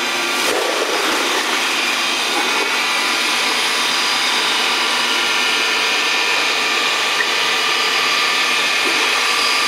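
Electric apple paste grinding machine running steadily, a constant motor whine with several steady tones over a rushing noise as the fruit is ground to pulp. A brief knock about half a second in.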